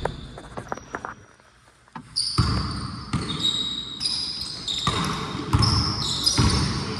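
Basketball being bounced on a court during a pickup game, with a run of short high sneaker squeaks starting about two seconds in.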